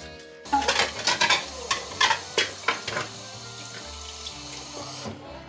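Dishes being washed by hand at a kitchen sink: water splashing and running, with scrubbing and the clink of plates and cutlery. It starts about half a second in and stops just before the end.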